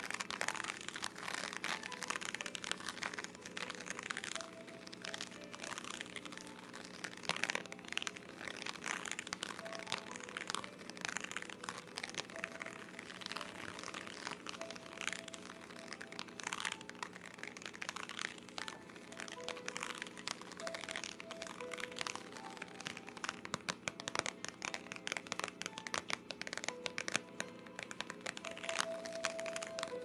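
Dense, irregular crackling and scratching right against the microphone, an ASMR-style rustle with no steady rhythm. Faint soft tones sound now and then underneath.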